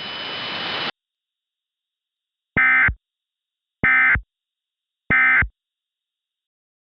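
Three short bursts of Emergency Alert System end-of-message data tones, the rapid two-tone digital code that closes an EAS alert, about a second and a quarter apart. Before them a hiss cuts off just under a second in.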